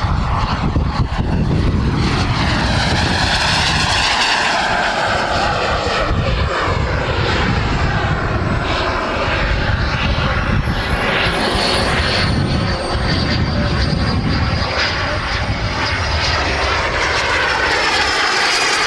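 Turbine engine of a radio-controlled model jet flying past: a steady loud rushing jet noise with a high whine that slides down in pitch around the middle of the pass.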